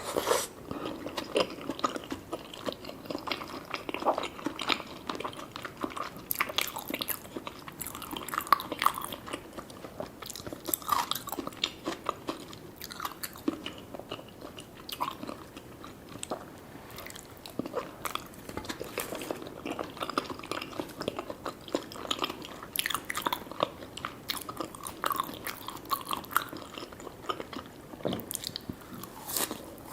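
Close-miked chewing and biting of sushi and sashimi: a run of wet, irregular mouth clicks and smacks with some crunchier bites.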